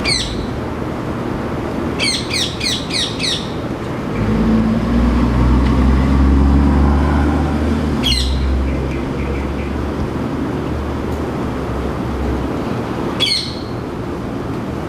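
Male rose-ringed parakeet calling with shrill squawks: one call at the start, a quick run of about five about two seconds in, then single calls near the middle and near the end. A low rumble swells through the middle and fades out.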